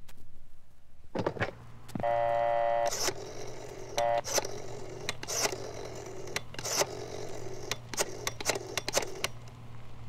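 Telephone being used: the receiver is lifted with clicks, and a buzzy dial tone sounds for about a second. Then a number is dialed, heard as a series of sharp clicks and a brief tone.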